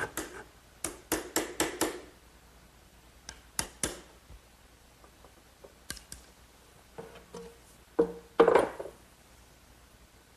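Handsaw and chisel trimming the corners off a wooden tongue on the end of a glued-up panel. A quick run of about five short strokes comes in the first two seconds, then a few more scattered strokes and knocks, with the loudest cluster about eight seconds in.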